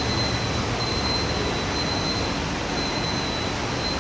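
3D printer filament extrusion line running: a steady mechanical hum and rush of noise from the machinery, with a faint, steady high-pitched whine.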